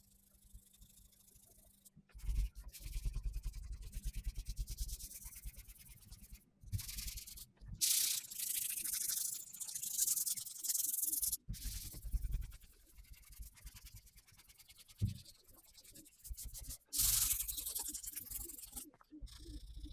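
Hand sanding of primer on a van's body panel: quick back-and-forth rubbing strokes with a scratchy hiss, in several stretches that cut off abruptly.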